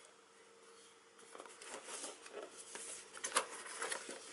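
Hands handling and turning a small cardboard box: fingers rubbing and tapping on the cardboard in a string of light scratches and clicks, starting about a second in, with a couple of sharper clicks later on.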